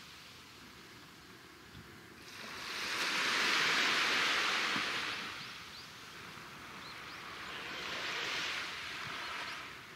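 Small waves washing onto a sandy beach, a hiss of surf that swells and fades twice: once about three seconds in and again near the end.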